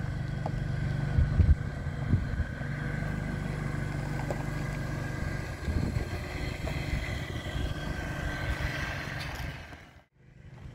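Car engine running and tyres crunching on gravel as a sedan pulls out through a gate and drives off, a steady low rumble that cuts out abruptly shortly before the end.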